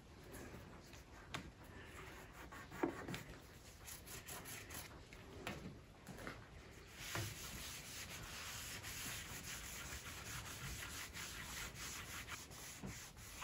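A cloth rubbing steadily over the wooden frame and gilded studs of an antique bed crown, starting about seven seconds in. A few light knocks of handling come before it.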